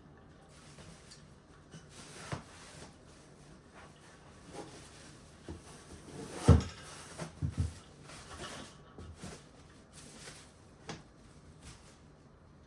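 Scattered knocks and clicks of things being handled and set down, the loudest a thump about six and a half seconds in, followed by two softer ones.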